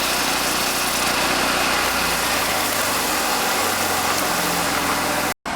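An engine running steadily under a loud, even hiss. Its low note shifts about two seconds in, and the sound cuts off abruptly near the end.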